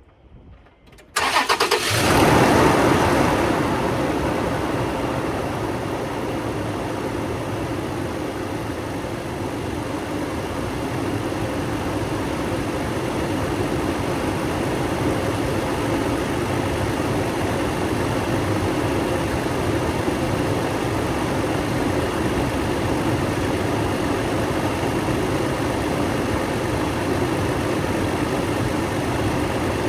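2012 Toyota Tacoma engine starting about a second in, flaring up briefly, then settling into a steady idle. It is running on fresh oil just after an oil and filter change.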